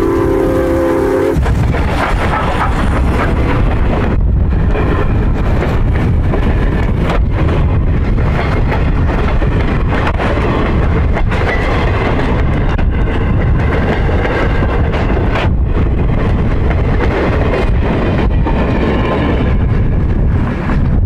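Norfolk & Western 475, a 4-8-0 steam locomotive, ends a blast on its Southern Pacific six-chime whistle about a second in. The engine and its passenger cars then roll past close by, with a loud, steady rumble and rapid clatter of wheels on rail.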